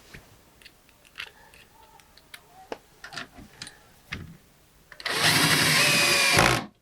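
A few light clicks and knocks of handling, then about five seconds in a power drill runs steadily for about a second and a half, driving a screw, and stops abruptly.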